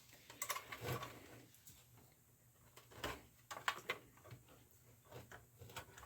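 Scattered light clicks and taps, irregular and of varying strength, from hands handling parts inside an opened Macintosh Classic.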